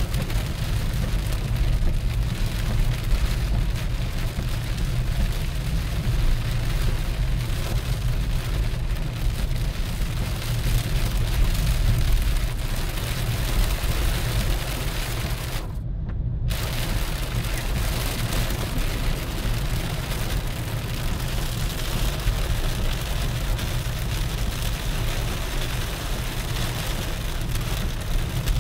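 Heavy rain falling on a moving car's roof and windscreen, heard from inside the cabin over the steady low rumble of the car driving on a wet road. About halfway through, the rain noise cuts out for about half a second while the rumble goes on.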